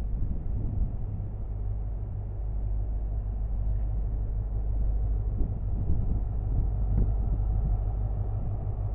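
Class 43 HST diesel power car running as the train draws slowly into the station, a steady low rumble growing a little louder as it nears.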